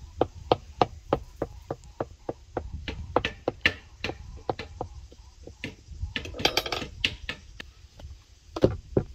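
A fork pricking rounds of dough on a wooden board: quick, regular taps of the tines striking the wood through the dough, about four a second, with a short denser flurry of scratching taps a little past the middle.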